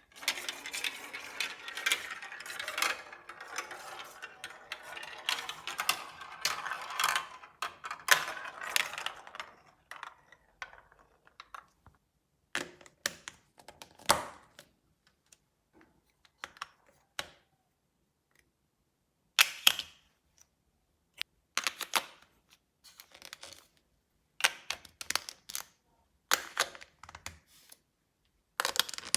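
Hard plastic LEGO Duplo marble-run pieces and marbles clattering: a dense continuous rattle for about the first ten seconds, then separate sharp clicks and short clacks every second or two with quiet gaps between.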